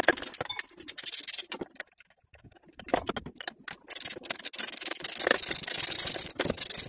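Socket ratchet clicking rapidly as it is worked back and forth on a power steering pump mounting bolt, in two runs with a short pause about two seconds in.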